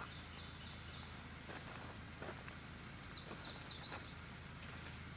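Insects trilling steadily at one high pitch, with a short run of quick high chirps about three seconds in.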